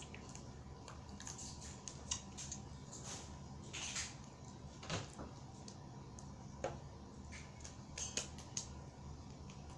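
Homemade slime and a plastic bag being handled by hand: scattered crinkles, clicks and small pops, the loudest about 2, 4, 5 and 8 seconds in, over a faint steady hum.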